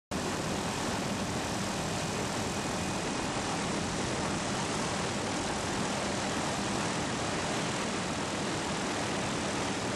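Aircraft engine running steadily, heard from aboard the aircraft filming from the air: an even noise with no rhythm and no change in pitch.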